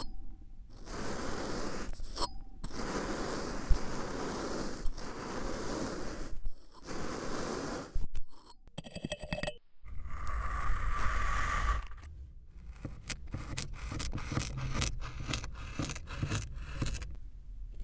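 Kinetic sand being cut and scraped by metal and plastic tools in a run of short clips: grainy scraping that stops and starts at each cut, with dense crisp crackles in the later part.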